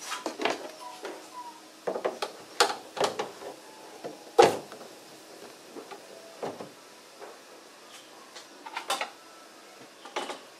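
Hard plastic knocks and clicks as a Mercedes W210's bonnet-mounted air-intake duct is fitted and pressed into place against the underside of the bonnet. The knocks come in scattered clusters, the loudest a little before halfway.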